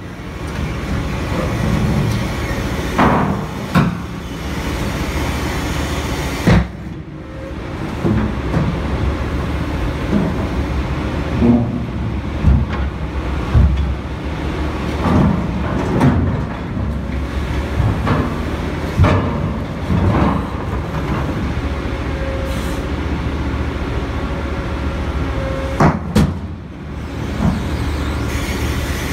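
VTN CI13000 hydraulic scrap shear on an excavator crushing and cutting a large steel pipe. The excavator's diesel engine runs steadily under load, broken by about ten sharp metallic cracks and clanks at irregular intervals as the jaws bite into and buckle the steel.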